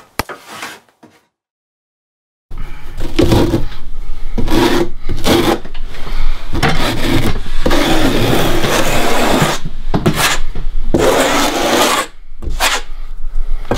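Trowel scraping and spreading thin-set mortar over Schluter Kerdi-Board, a run of rough strokes with short breaks that starts after a brief silence.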